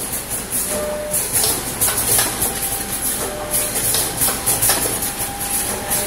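Several DXD-50KZ liquid sachet packing machines running together: a steady mechanical clatter of irregular knocks over a constant high hiss.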